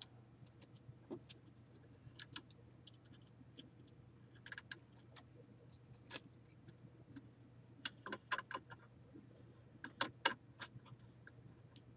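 Faint, scattered small clicks and ticks of a wire being worked into a screw terminal strip on a circuit board, over a faint steady low hum.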